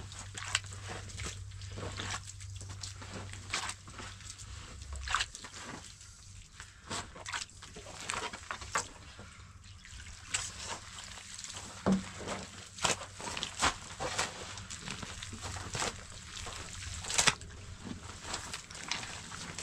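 Water sloshing and splashing in irregular bursts, with scattered clicks and knocks. A low steady hum stops about five seconds in.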